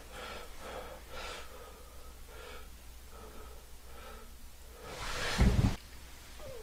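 A person's breathing: a series of faint breaths, then one louder breath about five seconds in.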